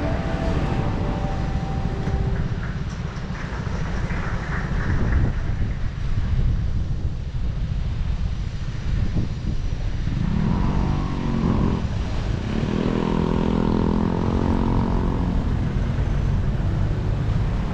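City traffic heard from a moving bicycle: a steady low rumble with a motor vehicle's engine passing close by, its pitched running clearest from about ten to fifteen seconds in.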